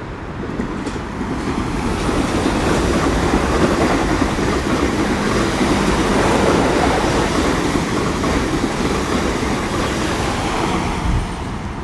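Two coupled Class 444 Desiro electric multiple units passing through the station without stopping: a steady rush of wheel-on-rail noise that builds over the first few seconds, is loudest around the middle, and eases toward the end.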